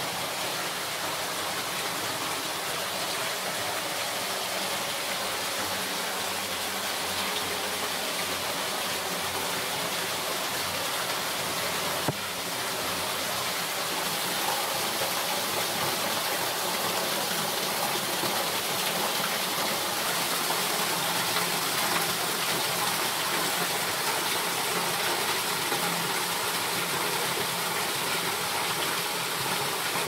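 Steady rush of water from a small underground waterfall splashing into a cave river pool, slightly louder in the second half. A single sharp click about twelve seconds in.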